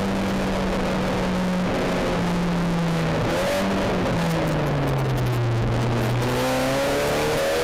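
SEAT Leon Supercopa's turbocharged four-cylinder engine heard from inside the stripped cabin, its note falling slowly for about five seconds as the car slows, then climbing again near the end as it accelerates, over steady tyre and road noise.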